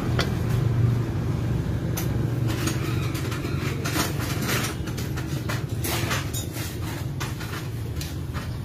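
Scattered metallic clinks and knocks as the bare Honda Click 125 engine crankcase and its bolts are handled, over a steady low hum.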